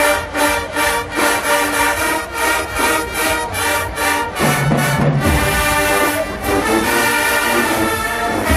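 HBCU marching band playing, brass over drums. Percussion beats about three times a second under short brass notes, then from about halfway the band holds loud sustained brass notes.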